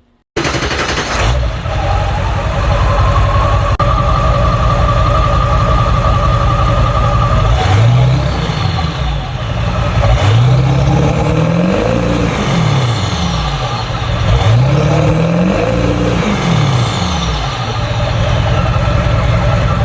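A motor vehicle's engine running, its pitch rising and falling several times in the second half as it speeds up and slows down.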